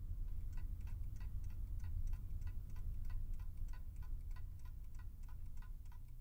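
Mechanical alarm clock ticking steadily, about four ticks a second, starting about half a second in and fading near the end, over a steady low hum.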